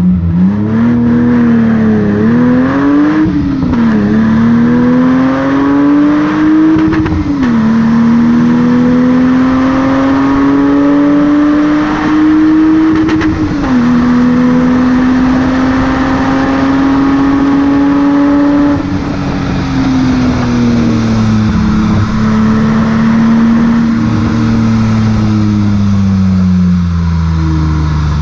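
BMW E30 325i's 2.5-litre M20B25 straight-six heard right at the exhaust tip, accelerating hard: the note climbs and falls back at each of several gear changes. In the last several seconds the note sinks slowly as the car eases off.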